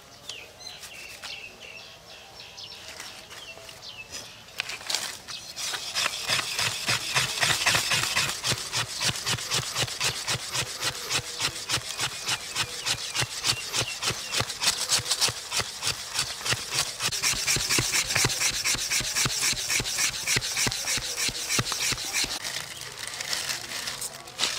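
Rhythmic scraping strokes, several a second, starting about five seconds in and keeping a steady pace.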